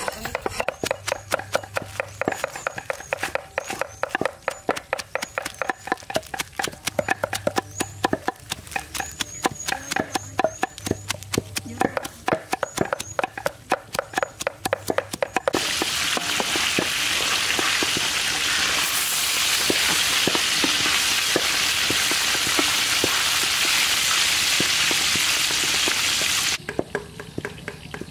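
A cleaver rapidly chopping fresh leafy greens on a wooden chopping block, a fast run of knocks several times a second. About halfway through, a loud steady hiss sets in abruptly and cuts off just as suddenly near the end.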